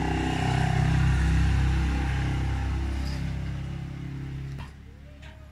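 A motor vehicle's engine running, growing louder and then fading, before dropping away abruptly about four and a half seconds in.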